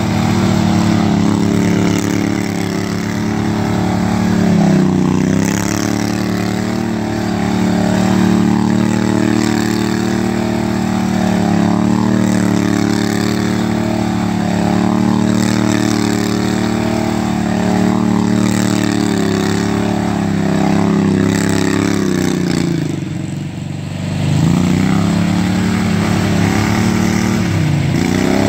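Riding lawn mower engine running steadily as the mower spins donuts on dirt, its pitch dipping briefly a few times and once more deeply, and quieter, near the end.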